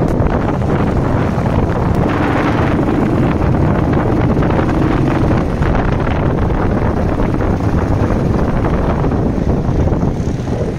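Heavy wind rushing over the microphone of a moving motorcycle, with the engine's steady running low underneath.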